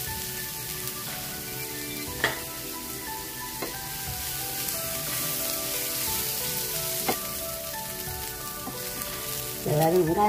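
Shallots and grated coconut sizzling in oil in a non-stick frying pan while a wooden spatula stirs them, with a few sharp knocks of the spatula against the pan.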